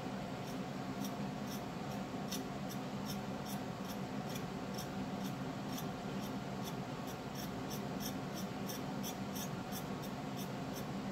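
Metal painting knife lightly tapping and scraping acrylic paint on a slate tile, a small tick about two or three times a second over a steady low hum.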